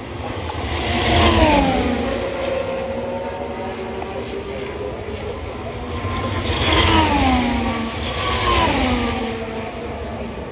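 Three Formula 1 cars with turbocharged V6 hybrid engines passing at speed, the engine note of each dropping in pitch as it goes by: one about a second in, then two close together near the end.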